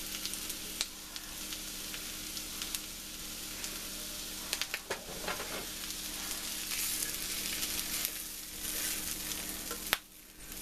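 Potatoes, onions and veggie steak strips sizzling in butter in a cast iron skillet, with scattered clicks and scrapes of a utensil against the pan as the food is scooped out. The sizzle drops away briefly near the end.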